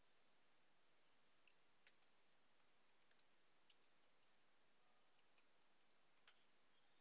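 Faint computer keyboard typing: a quick, irregular run of light key clicks starting about a second and a half in, over near silence.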